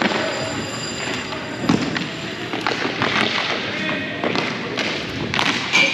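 Sounds of a game in play in a large hall: repeated thuds and knocks of play, with voices calling out, and a referee's whistle blown near the end.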